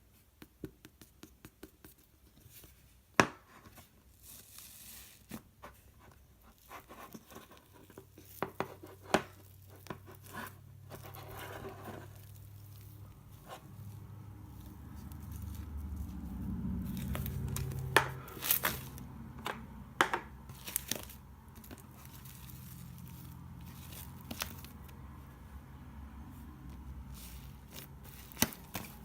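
Handling noise: crinkling and tearing, with many scattered sharp taps and clicks and a low hum through the middle.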